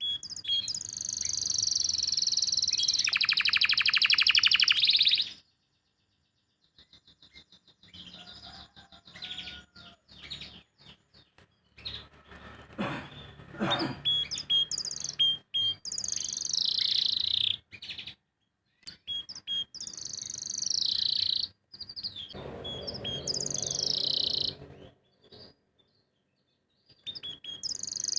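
Domestic canary singing in separate phrases of chirps and fast trills, the loudest a long buzzing trill in the first few seconds, with short pauses between phrases. The bird has just finished its moult and its song is not yet at full strength.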